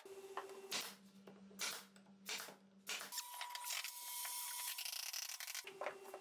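Pine boards being handled and fitted together: a few soft wooden knocks in the first three seconds, then a longer rubbing scrape of wood sliding on wood. A faint steady hum runs underneath.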